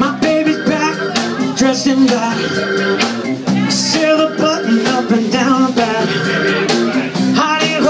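Live rhythm-and-blues band playing an up-tempo groove: electric guitar, keyboards, electric bass and drum kit, with a steady beat.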